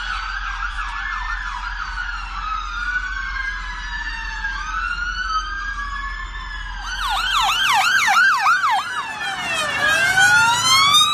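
Several emergency-vehicle sirens, ambulances among them, sounding at once. Slow rising and falling wails are joined about seven seconds in by a fast yelp, and the sound gets louder.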